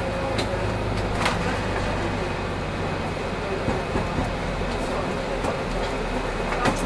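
Solaris Urbino 8.9LE city bus on the move: a steady low engine hum and road noise, with a few short rattles or clicks.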